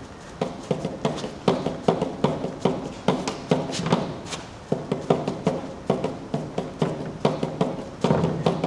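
A hand-made marking tool striking and tapping against paper on a wall in quick, irregular strokes, about two to three a second.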